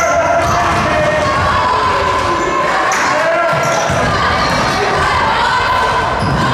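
Basketball being dribbled on a hardwood gym floor, the bounces echoing in the hall, with players' and spectators' voices calling out over it.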